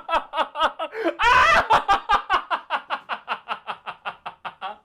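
A person laughing hard: a rapid run of ha-ha pulses, about five a second, with a louder burst about a second in, fading off near the end.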